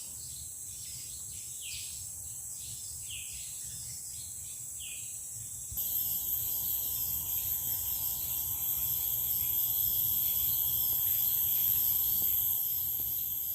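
Steady high-pitched buzzing of forest insects, with a short falling bird call repeated every second or two during the first half. About halfway through, the insect buzz suddenly gets louder.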